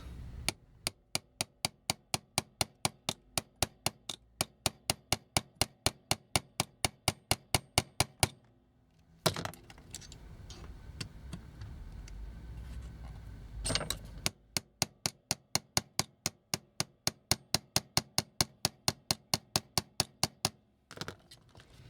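Rapid, evenly spaced clicks or taps, about four or five a second, in two runs of several seconds each. Between the runs come a pause with a knock and some low handling noise.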